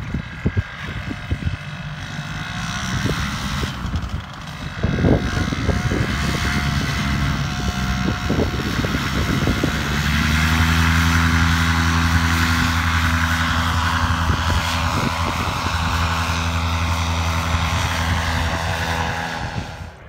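A paramotor's engine and propeller run at low power under gusty wind buffeting the microphone. About halfway through, the engine goes up to full power and holds a steady drone for the takeoff run and climb.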